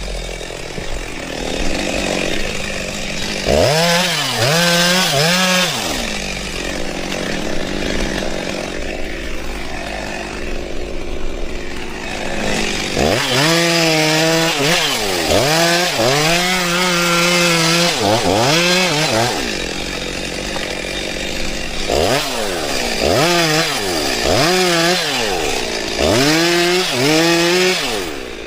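Cordless battery chainsaw running and cutting through wood. In three spells the motor's pitch dips and recovers again and again as the chain bogs under load.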